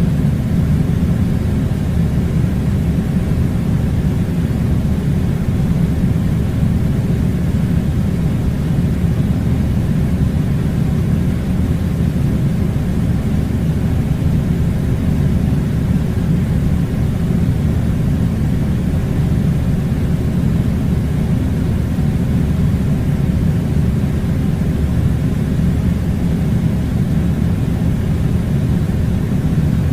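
Air conditioning unit running steadily: a loud, even low rumble with a faint hum and no changes.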